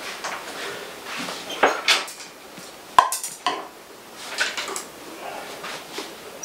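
Small hard clinks and scrapes of painting tools against a palette as acrylic paint is mixed, with a sharp clink about three seconds in.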